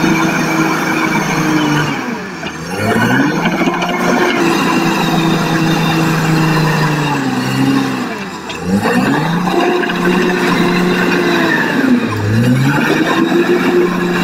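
Caterpillar crawler bulldozer's diesel engine running hard with a steady pitched drone. Three times, about two, eight and twelve seconds in, the engine note sags and then climbs back up as the dozer works back and forth on the cut.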